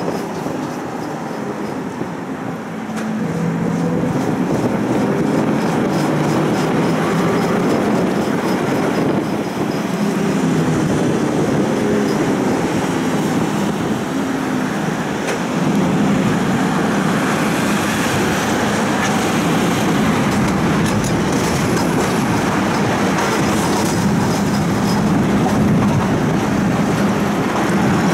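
Tram running along its tracks, heard from on board: steady wheel-on-rail rumble with a low pitched motor hum through it, a little louder from just past halfway.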